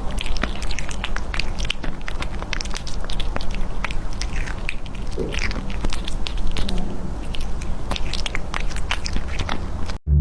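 A cat chewing and crunching, with many quick, irregular crunchy clicks over a steady low hum.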